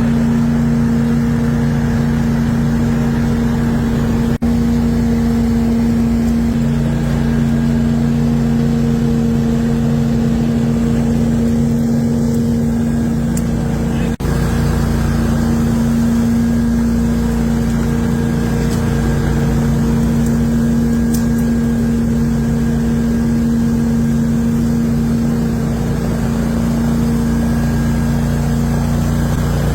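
Engine of a vacuum and shredder machine for organic waste running steadily at a constant speed, a loud, even drone. It dips briefly twice, about 4 and 14 seconds in.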